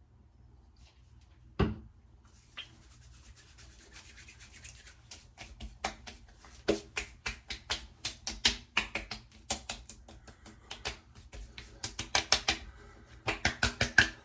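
Hands rubbing and rapidly patting witch hazel toner onto a freshly shaved face, in quick clusters of sharp slaps. There is one knock about a second and a half in.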